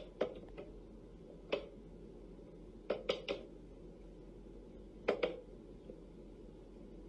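Wooden whack-a-mole cat toy clacking as a cat paws its levers and the toy mice pop up and drop back into their holes: a scattering of short, sharp wooden knocks, some in quick pairs.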